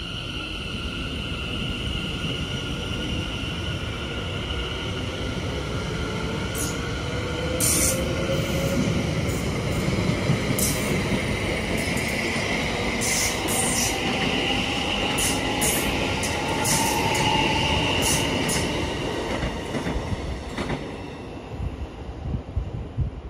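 Class 720 Aventra electric multiple unit accelerating away, its traction motors whining and rising in pitch. Wheels squeal on the curved track, with a run of sharp clicks over the rail joints as the carriages go by. The sound grows loudest in the middle and fades near the end as the train recedes.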